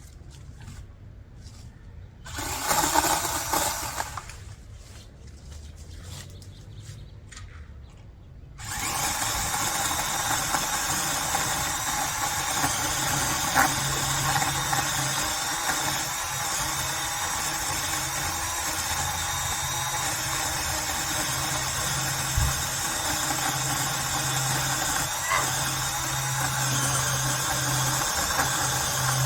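Battery-powered chainsaw briefly spinning up about two seconds in, then running steadily from about nine seconds in as it cuts into a tree trunk.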